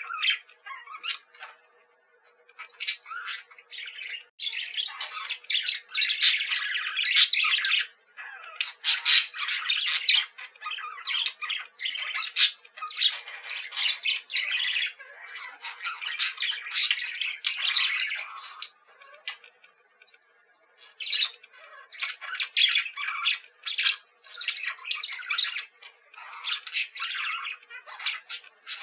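Budgerigars chattering and squawking in rapid, high-pitched strings of calls, with a couple of brief pauses.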